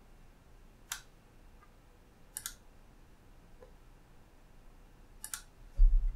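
Computer mouse buttons clicking: three short, sharp clicks a second or more apart. Near the end comes a louder low thump, followed by a faint low hum.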